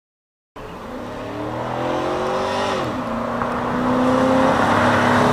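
Chevrolet 1500 4x4 pickup's 5.3-litre V8 accelerating hard. It starts abruptly just after half a second in, its pitch climbs, drops sharply at an upshift about three seconds in, then climbs again as it grows louder.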